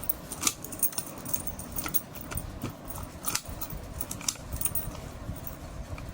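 Key working an old Italian-made apartment door lock, freshly reassembled after repair and being tested. Its bolt and latch give a run of irregular metallic clicks, with keys rattling on the ring.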